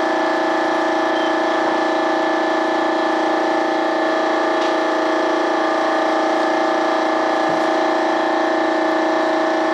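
A machine running steadily with a constant hum made of several unchanging tones, like an electric motor driving a fan or compressor. A couple of faint knocks sound over it.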